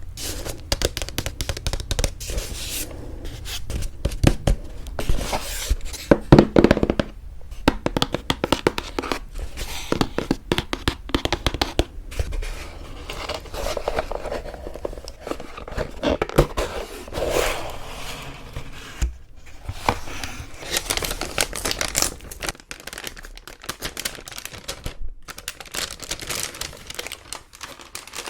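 Paper wedding invitation samples being handled close up: irregular rustling, crinkling and rubbing of card and paper, with a few brief pauses.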